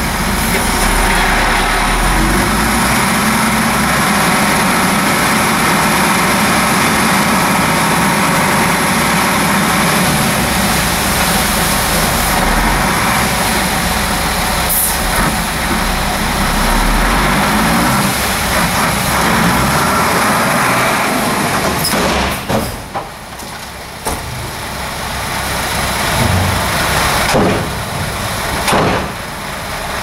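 Dump truck's diesel engine running steadily under load while the hydraulic hoist raises the bed to tip out a load of soil. The engine noise drops away about two-thirds of the way through, then picks up again unevenly.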